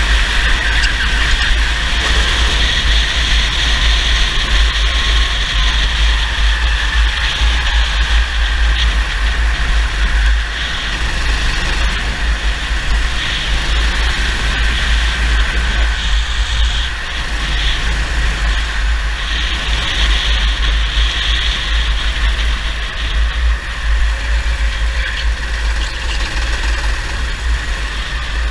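Racing go-kart engine running hard at speed, its note easing off briefly a few times, as for corners, and building again. A heavy low rumble of wind on the microphone runs underneath.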